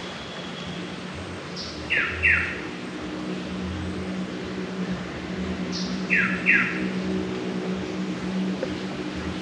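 A bird calls twice, about four seconds apart: each call is a short high note followed by two quick descending whistles. A steady low hum rises underneath from about three seconds in.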